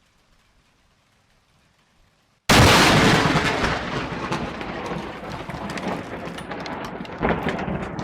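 Near silence, then about two and a half seconds in a sudden, very loud crack of a close lightning strike. Its thunder rumbles on with sharp crackles.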